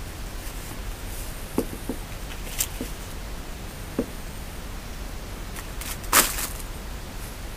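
Handling noise from hands working an e-reader in its case: a few light taps and clicks, then one brief louder rustle about six seconds in, over a steady low hum.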